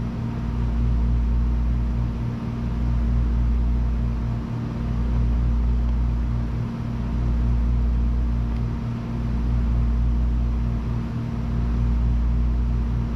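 A steady machine hum with a deep rumble that swells and dips about every two seconds.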